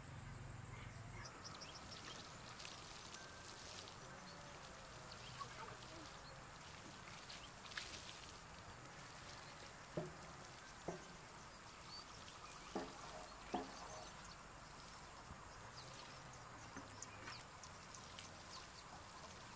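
Quiet outdoor ambience with faint animal calls, and four sharp knocks in two close pairs about halfway through.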